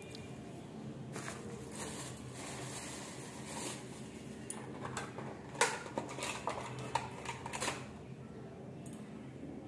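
Steady fan hum under light clinks, taps and rustles of small brass puja vessels and items being handled on a tiled floor, with a cluster of sharp clicks between about five and eight seconds in.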